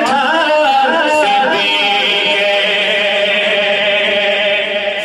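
A man singing a naat unaccompanied into a microphone: an ornamented, wavering melody, then a long held note for about three seconds.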